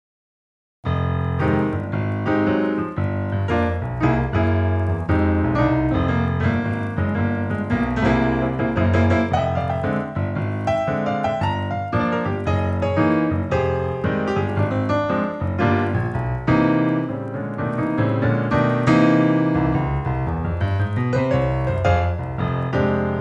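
Piano music with many quick notes over a low bass, coming in abruptly just under a second in after a brief silence.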